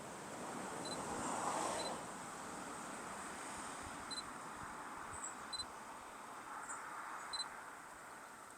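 Sony A7 mirrorless camera giving its short high focus-confirmation beep five times at irregular intervals, as autofocus locks and re-locks while the photographer struggles to focus, over faint steady outdoor hiss.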